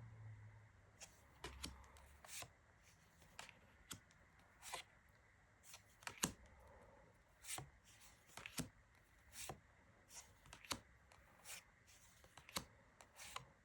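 Faint, soft taps and slides of glossy oracle cards being handled and moved one after another, about one a second.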